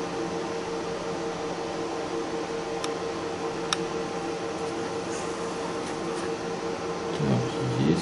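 Steady mechanical hum of workshop machinery with a constant droning tone. Two light clicks a little under a second apart near the middle, from small metal injector parts handled with tweezers, and a brief low sliding sound near the end.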